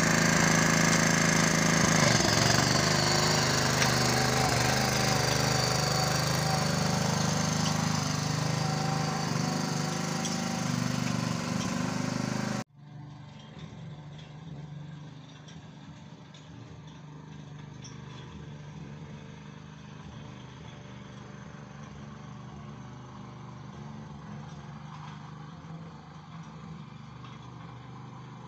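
Taral 210M petrol tiller's engine running steadily as the machine works the garden soil, loud and close at first. About thirteen seconds in it cuts abruptly to the same engine heard much quieter from farther off.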